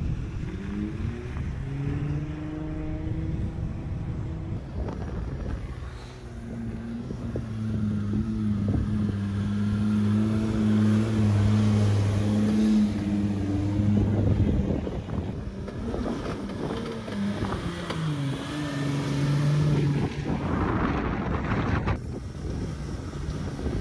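A 4x4 SUV's engine pulling under load through deep mud, its revs rising and falling several times.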